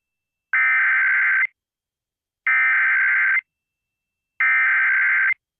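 Emergency Alert System SAME header: three identical bursts of rapid two-tone digital data, each about a second long with about a second of silence between them. This is the encoded header that opens an EAS alert, here a tsunami warning.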